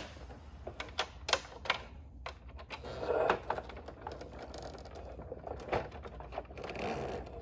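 Scattered sharp clicks and light rattles of hard plastic as hands handle a Calico Critters toy school bus and fit its small stop-sign piece on, with a short rustle about three seconds in.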